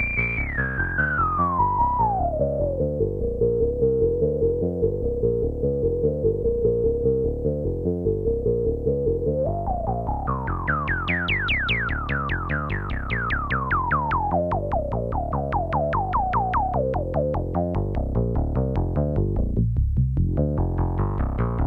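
Sequenced analog synthesizer notes from an Orgone Accumulator oscillator, played through the SSI2144 four-pole low-pass filter of a Neutron Sound Damnation Alley prototype, with its resonance singing. The cutoff is swept down by hand in the first three seconds and held low. About ten seconds in the filter opens up and its envelope gives each note a quick downward sweep. This fades as the cutoff is turned back down, dips dark briefly near the end, then opens again.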